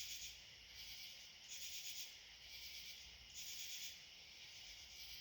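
Faint high-pitched chorus of night insects in the forest, swelling and fading in rhythmic pulses about once a second.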